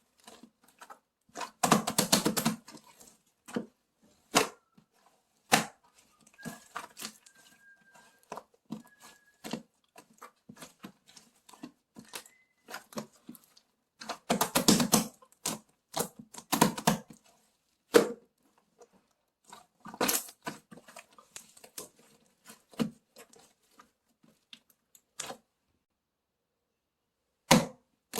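Irregular clicks, taps and short crackling bursts of something being handled at close range, with a few louder crackly clusters.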